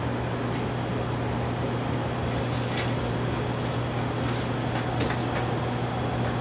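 Steady background hum and hiss, with a few light rustles and clicks between about two and five seconds in as the printer's wiring harness is handled.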